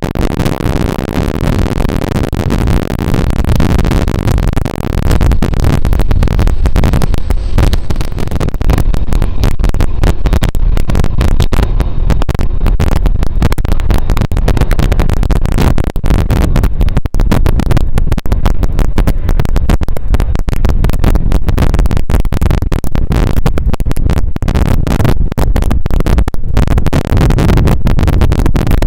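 Loud wind buffeting on the microphone, a rumbling roar that turns choppy and crackling about five seconds in, over the noise of a Boeing 767-381ER taxiing past on idle engines.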